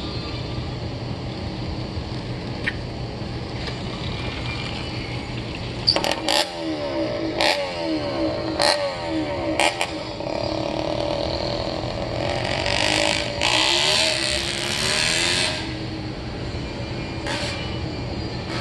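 Reed-ported two-stroke motorized-bicycle engine on an unmuffled expansion pipe. It runs steadily for about six seconds, then revs up and down repeatedly as the bike rides off, with several sharp cracks. The loudest part is a sustained high-rev run a little past the middle, and the pipe is very loud.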